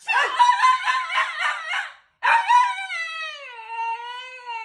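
Alaskan Klee Kai (miniature husky) howling and 'talking' at a pretend sneeze: a quick wavering woo-woo run of calls, a short break about two seconds in, then one long howl that slides down in pitch and wobbles.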